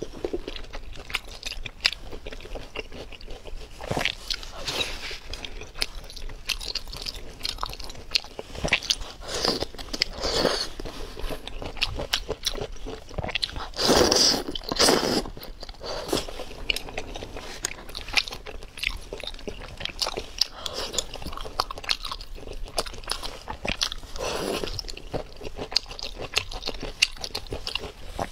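Close-miked eating: chewing with many small clicks throughout, and several louder slurps of wide noodles from spicy broth, the loudest about halfway through.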